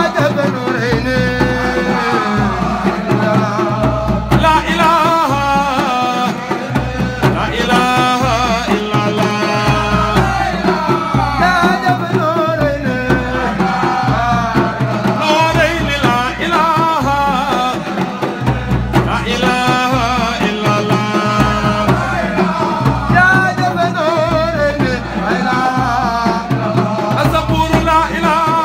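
A man singing a thiant, a devotional song of praise, into a microphone, his voice wavering and ornamented over a steady low drum beat.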